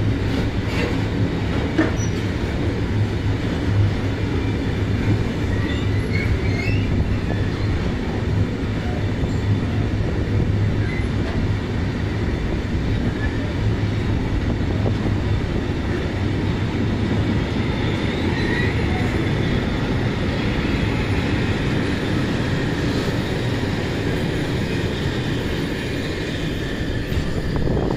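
Freight train of hopper wagons rolling past, a steady rumble of wheels on rail with a few faint wheel squeals now and then.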